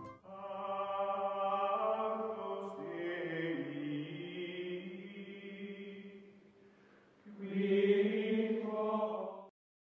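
Outro music of chant-like voices singing long held notes: one phrase that fades out about six seconds in, then a second phrase that stops abruptly shortly before the end.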